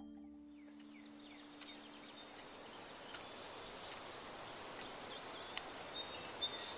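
Quiet outdoor ambience: insects drone at a steady, very high pitch, with a few faint bird chirps over a soft hiss. The insect drone stops suddenly about six seconds in, and a music chord fades out during the first two seconds.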